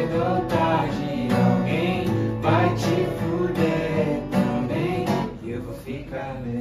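Acoustic guitar strummed in steady chords, with a woman singing a melody over it without clear words.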